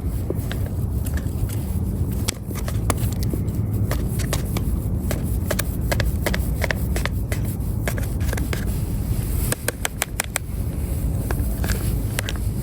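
Steady low wind rumble on the microphone at a campfire, with scattered sharp crackles and scraping clicks, including a quick run of them about ten seconds in.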